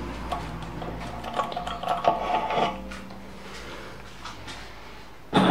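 Metal clinks and light rattles of tooling being handled at a stopped lathe, some with a brief ringing tone, over a low steady hum.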